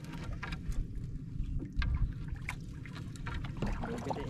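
Gill net being hauled by hand into a small wooden outrigger canoe: water trickling and dripping off the net, with scattered light clicks and taps, over a steady low rumble.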